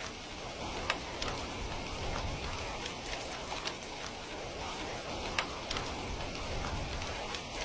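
Heavy rain falling steadily: a dense, even hiss with scattered sharper drop taps, one about a second in and another about two-thirds of the way through.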